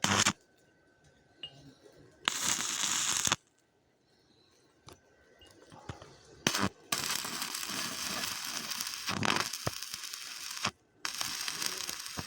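Welding arc crackling and hissing in several short runs, the longest about four seconds, with brief pauses between them.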